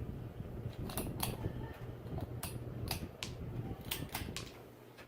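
Hampton Bay San Marino ceiling fan running with a steady low hum, along with a string of irregular sharp clicks.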